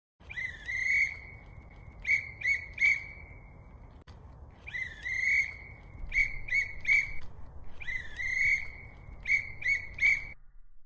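A whistle blown in three matching sets: each a longer, high blast that slides up at its start, followed by three short sharp blasts. A faint hiss lies beneath.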